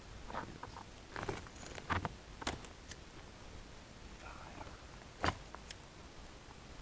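Campfire crackling: a few sharp pops and snaps at irregular intervals, the loudest about five seconds in.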